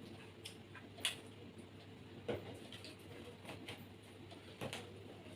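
Faint, irregular clicks and smacks of people eating: chewing and mouth sounds, with hands and food against plates. They come a few at a time over a low steady hum, the sharpest about a second in and a little after two seconds.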